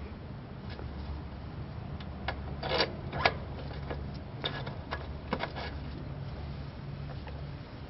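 Light taps on the rear axle of a Hinckley Triumph Bonneville as it is gently tapped out of the wheel: a short cluster about three seconds in, the loudest single tap just after it, and a few more around five seconds in, over a steady low hum.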